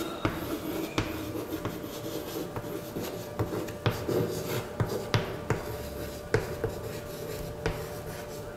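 Chalk writing on a blackboard: irregular taps and short scratching strokes of the chalk against the board, over a steady low hum.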